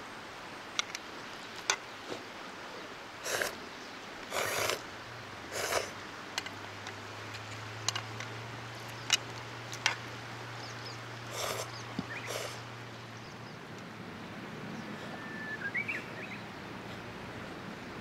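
Eating ramen from a metal pot: short noisy slurps of noodles and broth and a few sharp clicks of chopsticks against the pot, over the steady rush of a river. A faint low hum runs for several seconds in the middle, and a short chirp comes near the end.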